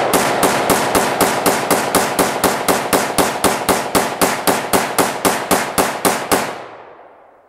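Rifle fired rapidly, about two dozen shots at about four a second, each crack followed by a short echo; the echo dies away near the end.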